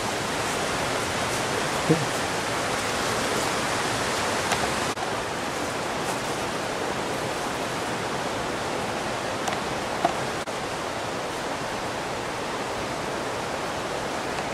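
Steady rush of flowing water, like a nearby forest waterfall, with a few brief knocks about 2 s and 10 s in.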